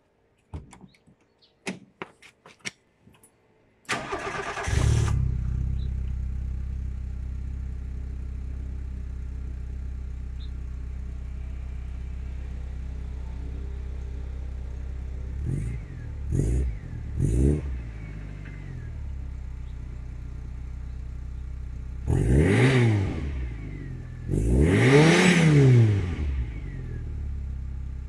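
1992 Volkswagen Polo Mk2F's 1.0-litre four-cylinder single-point-injection engine, heard at its stock exhaust tailpipe. After a few faint clicks it starts about four seconds in and settles into a steady idle, then is blipped three times in quick succession and later revved twice, each rev rising and falling in pitch.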